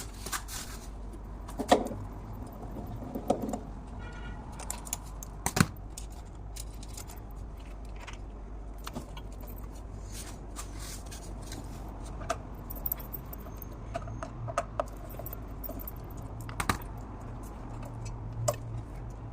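Scattered metallic clinks and knocks of hand tools and small parts being handled, a dozen or so separate strikes with the loudest about two and five and a half seconds in, over a steady low hum.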